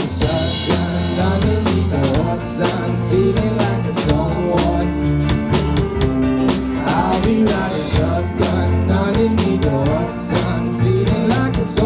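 A live pop band playing to a steady drum-kit beat, with electric and acoustic guitars, bass and keyboard.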